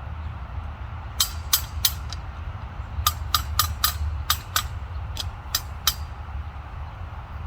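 A series of sharp metallic clicks and knocks, about a dozen in two uneven groups, from the chainsaw mill's frame being adjusted, over a steady low rumble.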